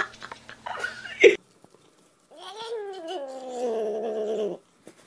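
A ginger cat gives one long, drawn-out meow that wavers and slowly falls in pitch, starting about halfway in. It is preceded by a few short chirping cat sounds and a sharp, loud burst in the first second or so.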